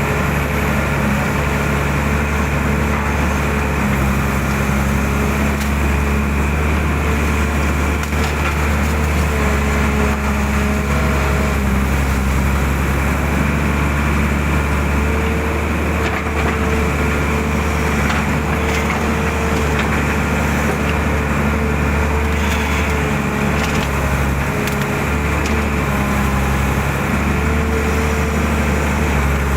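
Excavator diesel engine running steadily while digging, with a whine that steps slightly up and down in pitch as the load changes.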